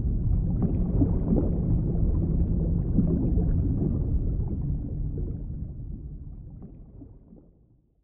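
Low underwater rumble of moving water with faint scattered crackles, fading out over the last few seconds.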